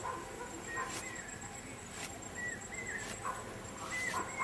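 Outdoor animal calls: scattered short chirps and whistled calls, with a quick run of repeated short notes near the end and a few sharp clicks.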